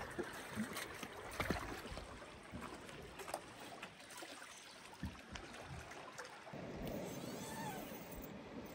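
Calm water lapping and gurgling against rocks around a moored boat, with a few scattered light knocks. About six and a half seconds in, a steadier rushing noise takes over.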